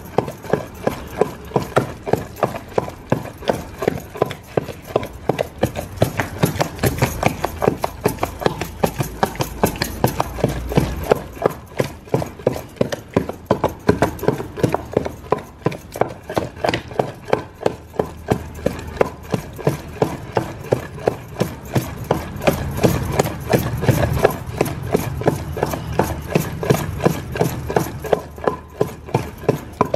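Steady rhythmic knocking, about two to three strokes a second, from making roti and chutney by hand.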